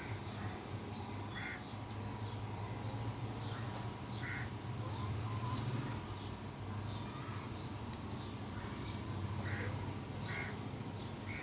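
Birds calling: a short high chirp repeats about twice a second, with brief lower, harsher calls every few seconds, over a steady low hum.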